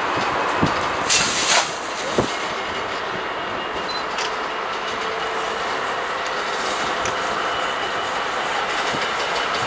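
A train running on the rails: a steady rush of wheel and track noise, with a few short, sharp bursts and clicks between about one and two seconds in.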